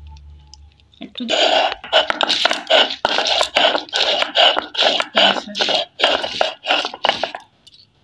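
Stone roller grinding on a stone slab (shil-nora), crushing garlic, ginger and a dried red chilli. It is rolled back and forth in steady rhythmic strokes, about two and a half a second, starting about a second in and stopping shortly before the end.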